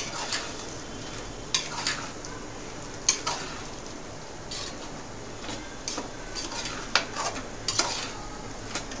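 A metal spoon stirring bottle gourd and dal in an aluminium pot, with scattered sharp clinks and scrapes of spoon on pot over a steady sizzle: the vegetables are cooking without any water added yet.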